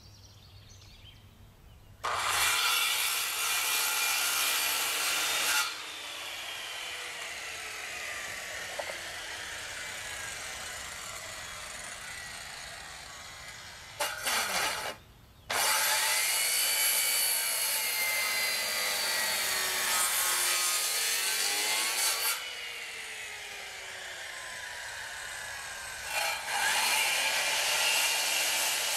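Circular saw cutting a bird's-mouth notch into a wooden rafter: three main cuts starting about two, fifteen and twenty-six seconds in, with a short burst near fourteen seconds. Between the cuts the saw's whine falls in pitch.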